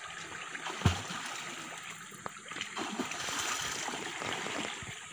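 River water running and splashing, with a single sharp knock about a second in.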